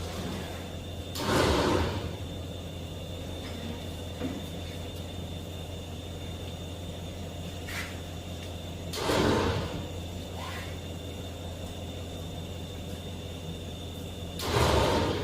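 Steady low hum of an idling engine, broken three times by short, loud scraping whooshes, each under a second long: about a second and a half in, about nine seconds in, and at the very end.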